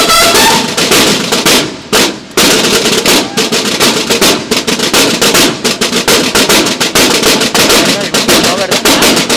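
A line of snare drums in a marching drum-and-bugle band playing rapid, crisp strokes. A held brass note cuts off just after the start, the drums drop out briefly about two seconds in, then play on alone in a fast, even rhythm.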